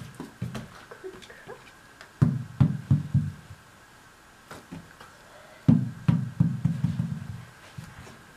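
Tennis ball bouncing on a hardwood floor in two runs, about two seconds in and again near six seconds, each run of dull thuds coming quicker and fainter as the ball settles. A faint steady high tone runs underneath.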